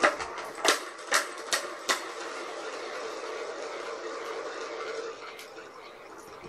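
Plastic balls clacking and rolling around the tracks of a stacked orange cat track-ball toy as kittens bat at them. Several sharp clacks in the first two seconds give way to a steady rolling rumble that fades after about five seconds.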